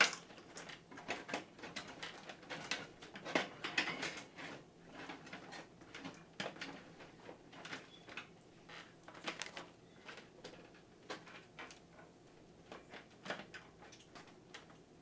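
Cables being handled and tucked inside an NZXT H700 PC case: irregular light clicks, taps and rustles, busier in the first half.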